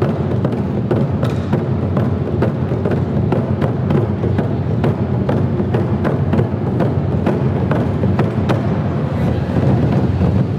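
Japanese taiko drums played by an ensemble: large barrel-shaped drums struck with sticks in a fast, steady rhythm of sharp, booming hits.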